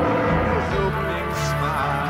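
Background music: sustained bass notes under a melody.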